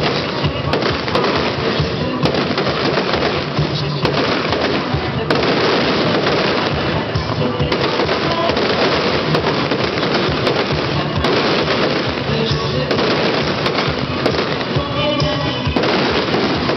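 Fireworks display going off in a dense barrage of rapid bangs and crackling, with music playing underneath.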